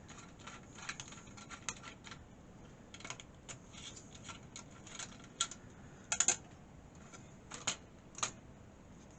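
Scattered small clicks and taps of a desktop PC's CPU cooler being unfastened and lifted off an LGA 775 processor. A tight cluster of clicks about six seconds in is the loudest.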